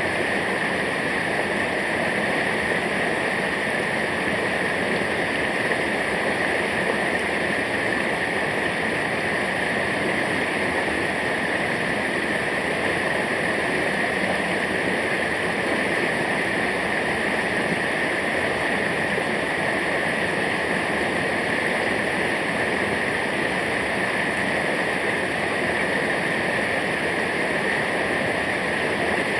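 Waterfall, a steady even rush of falling water with a constant hiss.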